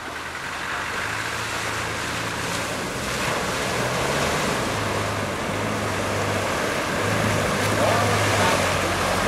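Land Rover Discovery wading through a shallow river: water splashing and rushing off its bow wave over a steady low engine drone, growing louder as it comes closer.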